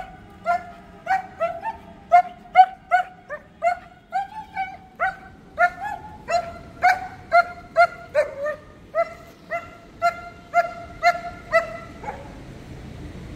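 German Shepherds in a kennel run barking over and over, about two to three barks a second, until the barking stops about twelve seconds in.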